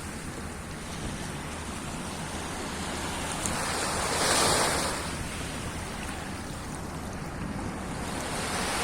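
Sea waves washing in, one swelling louder about four seconds in and then falling back.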